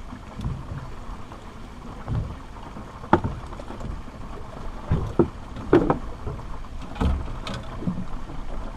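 Low, uneven rumble of water and wind around a small drifting boat, with a series of sharp knocks and clatters from gear being handled on the deck, the loudest about 3 seconds in and between 5 and 7.5 seconds.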